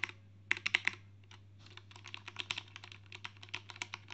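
Typing on a HyperX Alloy FPS Pro mechanical keyboard, whose switches the owner takes for Cherry MX Red: a short burst of keystrokes, then a faster, steady run of typing. The key sound is soft, a little quieter than blue switches.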